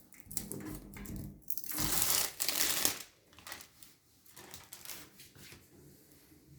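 Rustling and clicking from things being handled, loudest in a stretch of rustling about two to three seconds in.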